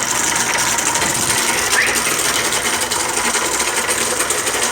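Inverter split air conditioner indoor unit running with ice built up inside it, its blower fan grinding and scraping against the ice in a fast, continuous clatter. The grinding is the sign of a frozen evaporator coil, iced over after a low refrigerant charge.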